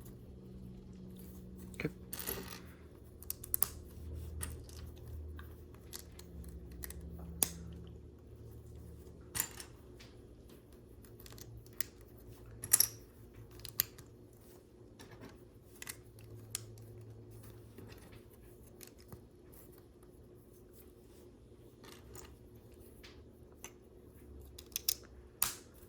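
Plastic LEGO pieces clicking and clattering as they are handled and fitted together, a string of irregular sharp clicks with a louder pair near the end.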